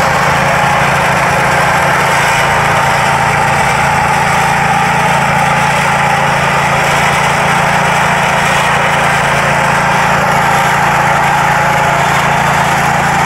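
Small gasoline engine of an HSC18 walk-behind sod cutter running steadily at a constant speed.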